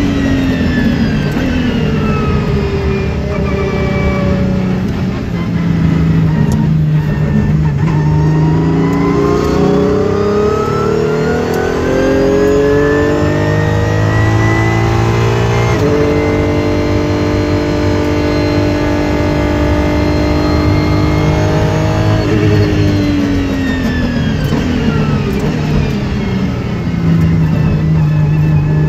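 Apollo IE's V12 engine heard from inside the cabin under hard track driving: the revs fall away, then climb steadily through a long pull until they drop suddenly at a gear change about halfway through. The engine then holds a steady pitch for several seconds before the revs fall again and begin climbing once more near the end.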